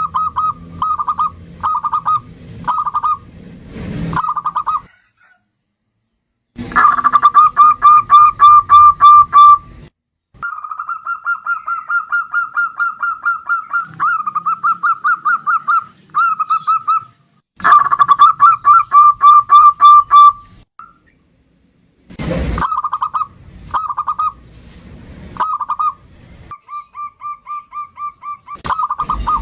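Zebra dove (perkutut) singing: phrases of rapid, pulsing coo notes, some short and some running several seconds. There is a pause of a second or two about five seconds in and another shorter one past twenty seconds.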